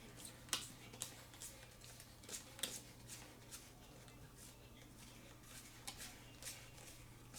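Faint, irregular clicks and rustles of small plastic Heroclix figures, cards and booster packaging being handled.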